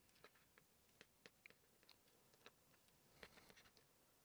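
Faint, irregular clicks of a plastic action figure's joints and parts being handled and posed, with a small cluster of clicks about three seconds in.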